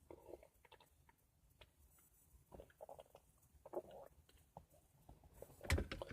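Faint scattered small clicks and rustles of handling, with a louder knock near the end.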